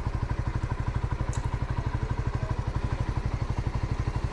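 Honda CBR125R's single-cylinder four-stroke engine idling, a steady even beat of about ten exhaust pulses a second.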